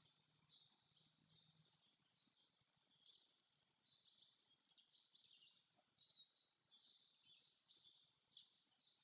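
Faint birdsong from a forest nature-sound recording: many short, high chirps and whistles from several birds overlapping, with no single song standing out.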